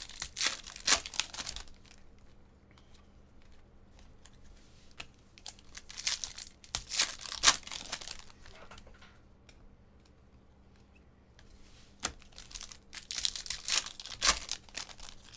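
2017 Topps Chrome card pack wrappers being torn open and crinkled, in three bursts of ripping and crackling a few seconds apart.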